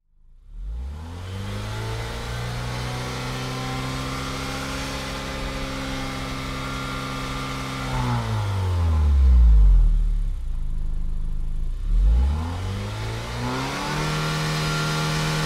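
A car engine revs up over the first second or so and holds a steady pitch. About eight seconds in it drops back to low revs, then revs up again around twelve seconds and holds steady at a higher pitch.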